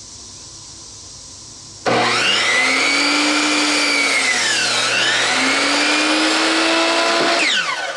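Electric circular saw starting up about two seconds in and cutting through a 2x6 rafter. Its pitch sags in the middle of the cut as the blade takes the load, then recovers, and the motor winds down near the end.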